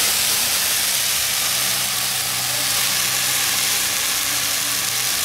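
Hot oil sizzling steadily in an iron kadai as seasoning is poured into it. A faint steady low hum runs underneath.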